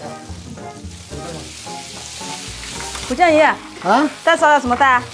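Chili-oil sauce in a wok sizzling and spitting as a ladle of water goes into the hot oil, then stirred with a wooden spatula.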